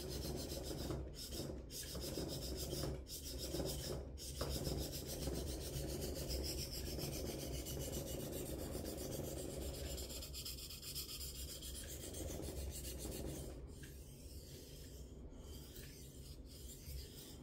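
A Victorinox kitchen knife's steel blade stroked back and forth over an oiled, fairly abrasive natural whetstone: a continuous gritty scraping with a few brief pauses early on. It grows quieter over the last few seconds.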